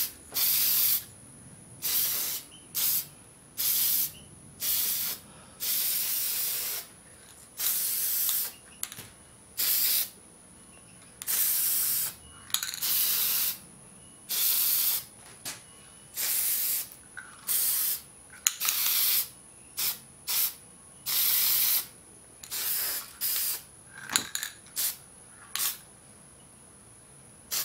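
Aerosol spray-paint can sprayed in some two dozen short hissing bursts, each under a second to about a second long, as it coats small metal parts.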